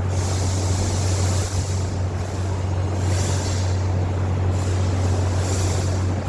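A machine running steadily with a strong low hum, with three brief hissing swells over it.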